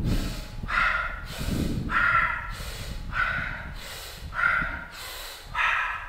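A man breathing hard and rhythmically in a forceful breathing exercise: five sharp breaths, about one every second and a quarter.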